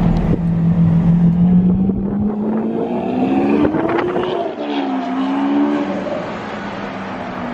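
Sports car engine running steadily, then climbing in pitch as it revs and accelerates about two seconds in, falling back and wavering, then settling into a low steady drone near the end.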